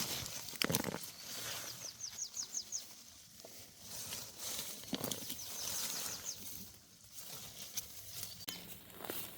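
Bird chirping in quick runs of short, high, falling notes, about two seconds in, among rustling and a few knocks.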